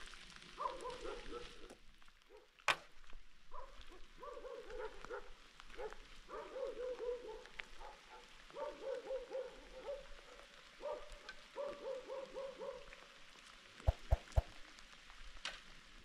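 An animal calling over and over: short, wavering, fairly high-pitched cries in groups of about a second. A sharp click comes about three seconds in and a few knocks near the end.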